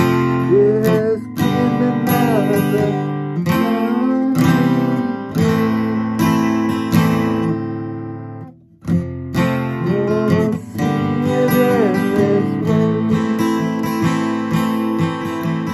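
Acoustic guitar strummed in chords, with a brief break about eight and a half seconds in before the strumming starts again.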